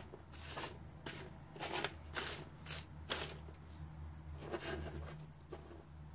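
About eight short, dry rustling scrapes at uneven intervals, with a pause in the middle: okra pods being handled.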